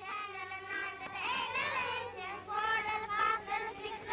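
Children singing a song together.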